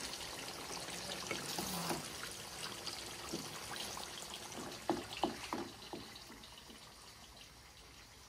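Chicken karahi bubbling and sizzling in a steel wok over a gas flame, a steady wet crackle. A few sharp knocks of the wooden spoon against the pan come about five seconds in, and the bubbling grows quieter for the last couple of seconds.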